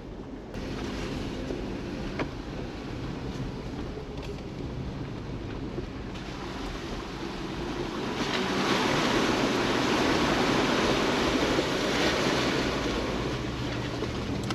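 Jeep driving slowly over a rough back road: a low engine hum under a rushing tyre and road noise that swells about eight seconds in and eases off near the end.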